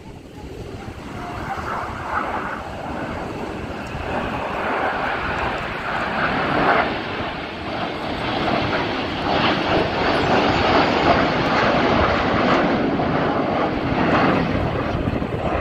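Jet noise from a formation of BAE Hawk T1 jets, with Adour turbofan engines, flying past. It is a steady rushing roar that builds over the first few seconds and stays loud.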